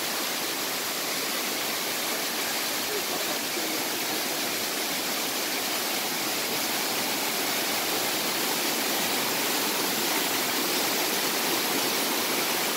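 Steady rush of a tall waterfall cascading down a rock face, getting a little louder in the second half.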